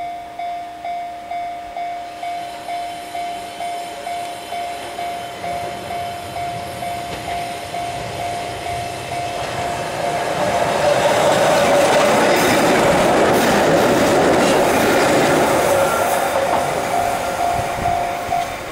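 Japanese level-crossing warning bell ringing at about two strokes a second. About ten seconds in, a Keihan Ishiyama Sakamoto Line train rises to a loud pass over the crossing and eases off near the end, with the bell still ringing.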